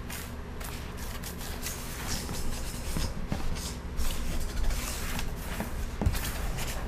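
A small paper card slid and scraped across a wooden tabletop under fingertips, in short scratchy strokes, over a low steady hum.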